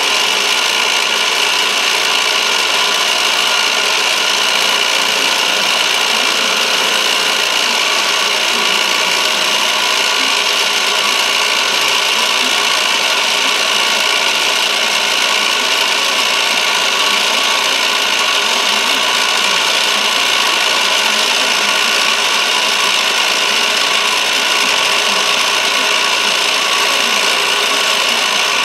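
A milling machine's cutter face-milling a copper bar: a steady cutting and grinding noise with a constant high tone.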